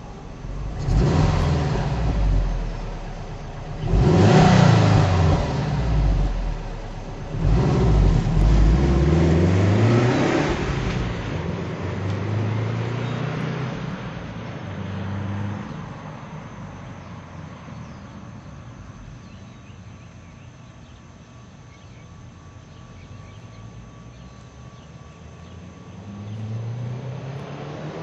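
2004 Subaru Forester XT's turbocharged flat-four revving through a 2006 STi OEM cat-back exhaust. There are three loud revs in the first eleven seconds or so, the pitch rising each time. After that the engine note is quieter and rises a few more times, once again near the end.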